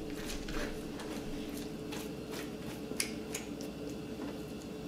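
Soft scraping and light clicks of a metal spoon on a plastic cutting board as roasted poblano peppers are peeled and seeded, with one sharper click about three seconds in.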